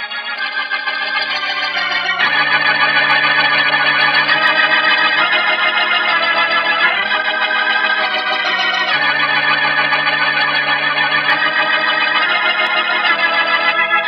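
Organ music playing held chords that change every couple of seconds.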